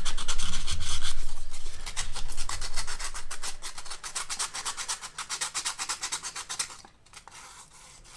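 Sandpaper rubbed quickly back and forth over the spot-weld area of a battery connection, about five strokes a second, cleaning it for a fresh spot weld. The rubbing fades and stops about seven seconds in.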